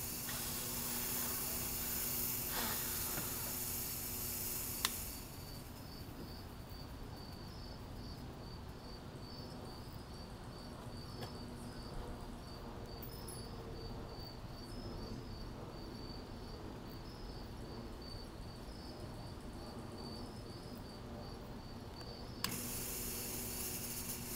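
Smoke machine hissing, switching off with a click about five seconds in and back on with a click near the end. In the quieter stretch between, a cricket chirps steadily.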